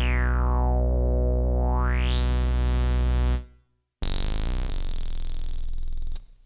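AD-3M DIY analogue synthesizer holding a low, buzzy bass note while its filter sweeps closed and then open again, so the tone goes dull and then bright; the note stops about three and a half seconds in. A second buzzy note with a high thin whistle above it starts at about four seconds and cuts off just after six.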